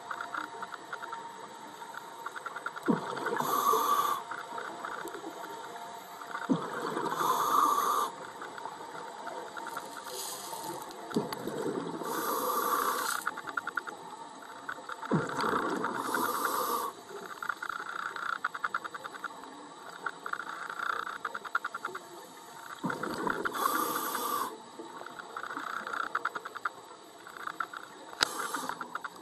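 Underwater scuba breathing through a regulator: a surge of breath and bubble noise about every three to four seconds, with a steady crackle of bubbles between.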